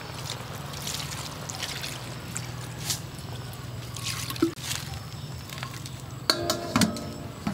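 Milk pouring from a plastic bottle onto vegetables in a metal wok, a steady trickling splatter. About six seconds in, an upturned metal basin is set on the wok as a lid and clanks and rings briefly a few times.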